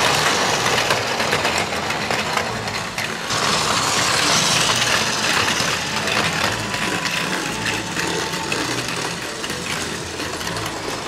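Several battery-powered Plarail toy Shinkansen trains running on plastic track: small motors whirring under a steady clatter of tiny clicks from wheels and couplings.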